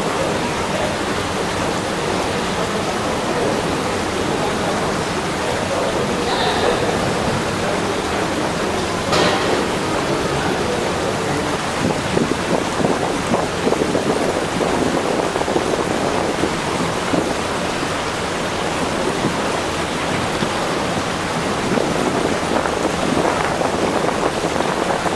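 Steady rushing of a swollen, fast-flowing river in spate.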